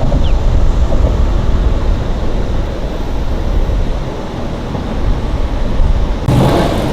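Wind buffeting a microphone: a steady low rumble, with a louder rush of noise near the end.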